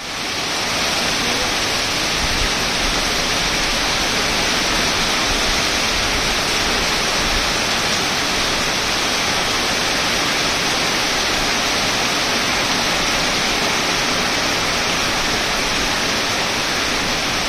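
Heavy rain pouring steadily on leafy trees and a gravel yard, an even, unbroken hiss.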